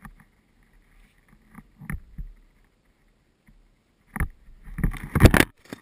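Handling and rubbing noise on a body-worn action camera as the wearer moves: a few scattered soft knocks and rustles, then a burst of louder scuffing and knocking from about four seconds in.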